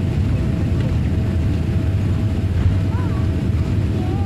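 Airliner cabin noise during landing: a steady low rumble of jet engines and airflow heard from inside the cabin, with a faint steady whine running through it.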